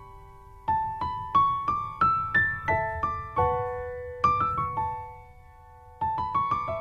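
Background music: a soft piano melody, single notes struck one at a time and left to ring, with a short pause before it picks up again near the end.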